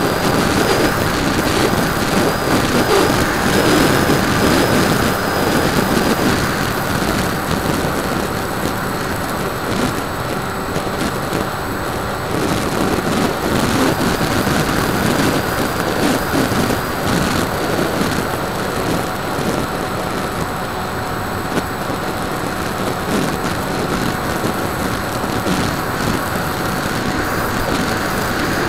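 Wind rushing over the onboard camera's microphone on a Bixler 2 foam RC plane in flight, with the steady whine of its electric pusher motor and propeller.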